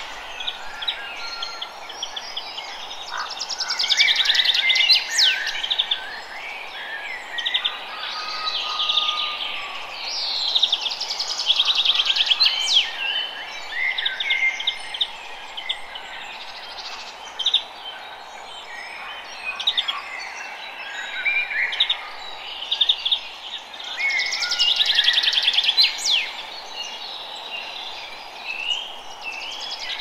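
Several songbirds singing and calling at once, with overlapping chirps, trills and whistled glides that swell in livelier passages every several seconds, over a steady background hiss.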